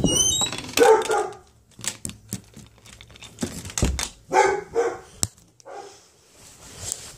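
A few short pitched animal calls, one about a second in and three more between about four and six seconds, among rustling and knocking.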